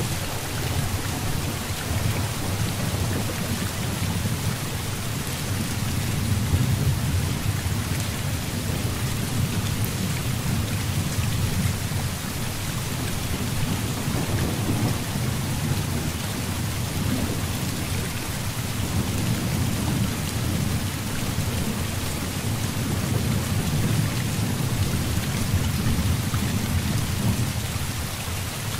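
Heavy rain falling in a steady hiss with individual drops ticking through it, over continuous low thunder rumbling that swells and eases every few seconds.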